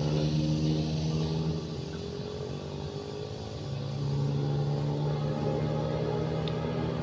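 Motorcycle engines running on a road close by: one fades off about two seconds in, and another comes up strongly about four seconds in.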